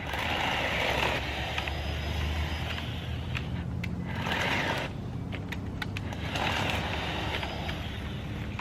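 Cordless Jawsaw electric chainsaw running steadily, with three spells of the chain cutting through small branches: at the start, about four seconds in, and about six and a half seconds in.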